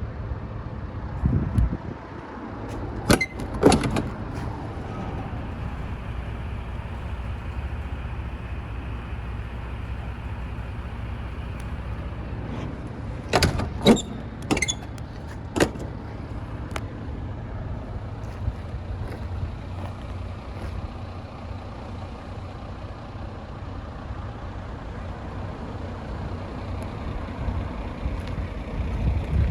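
Mercedes Antos 2530 truck's diesel engine idling steadily, with a few sharp clunks about three seconds in and a cluster of them a little before the middle.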